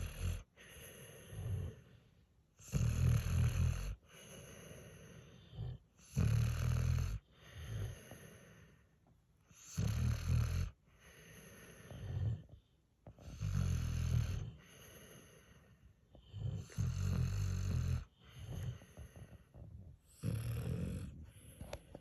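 Sleeping dog snoring: a loud, rattling snore roughly every three and a half seconds, with softer breathing in between.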